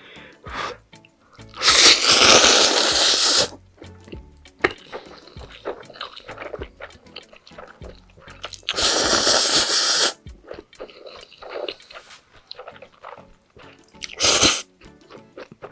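Close-miked slurping of saucy spicy noodles, two long slurps of nearly two seconds each and a short one near the end, with wet chewing and mouth clicks between them.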